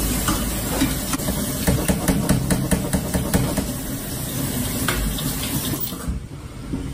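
Cold tap water running into a stainless-steel mesh strainer of canned black beans while a hand stirs them, with quick clicks and rattles of the beans against the metal. The water shuts off about six seconds in.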